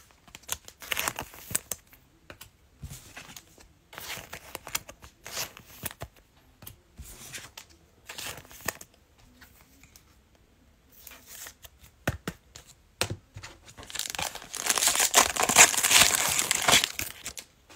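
Plastic trading-card pack wrapper crinkling in short scattered bursts, then torn open with a loud, dense stretch of tearing and crinkling in the last few seconds.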